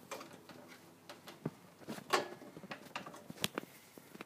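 A few faint, spread-out clicks and short scrapes of a screwdriver working at the metal parts of an oven-microwave door while a metal piece is being pried up.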